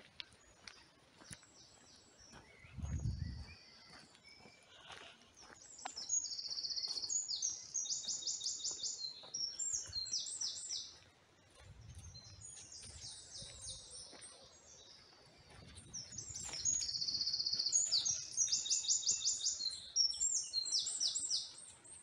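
A small songbird singing in woodland: high, rapid trilled phrases given in two long bouts with shorter snatches between them. There is a brief low rumble about three seconds in.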